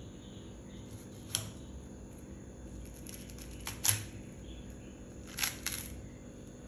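A few short clicks and knocks from a knife cutting a watermelon into wedges, the loudest about four seconds in.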